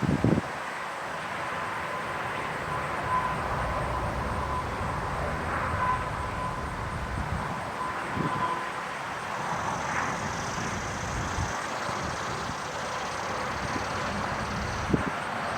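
Federal Signal STH-10 outdoor warning siren winding down after its alert, heard as a faint steady tone that fades away about halfway through. It sits under a steady outdoor rumble and hiss.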